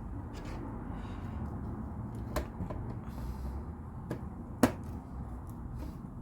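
A few sharp clicks and taps of LEGO plastic pieces being handled and pressed onto a model, the loudest about four and a half seconds in.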